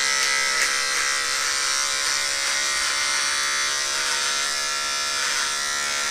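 Electric beard trimmer buzzing steadily as it cuts through facial hair.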